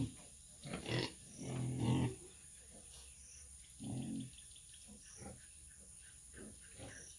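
Pigs grunting in short separate bursts, several in the first two seconds and another about four seconds in, with softer ones after.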